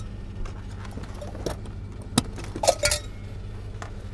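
Metal carabiner clips clicking and clinking as a cargo storage net is hooked onto a car's luggage-area tie-down hooks. There are a handful of sharp clicks, the loudest cluster near three seconds in, over a steady low hum.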